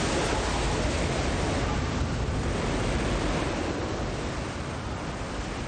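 Loud, steady rush of tornado wind with no separate crashes, slowly easing off toward the end.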